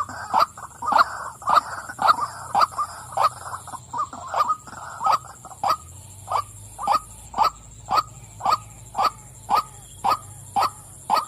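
Female white-breasted waterhen calling: a long series of short, harsh 'wak' notes repeated about twice a second, crowded and overlapping at first, then steady and evenly spaced.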